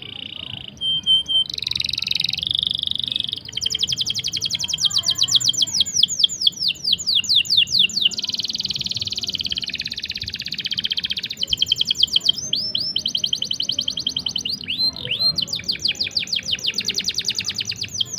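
A small songbird singing long rolling trills. It delivers rapid strings of high chirps, each sweeping downward, at about ten a second, in phrases broken by short buzzy, rattling passages.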